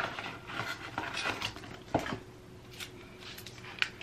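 Home pregnancy test wrappers crinkling and tearing as they are ripped open by hand: a run of short crackles, the loudest about two seconds in.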